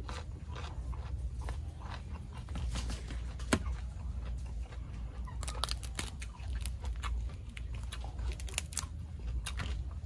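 Mouth chewing, then the shell of a large boiled tiger prawn being cracked and peeled by hand: a sharp snap about three and a half seconds in and a run of crackling from about five to nine seconds in.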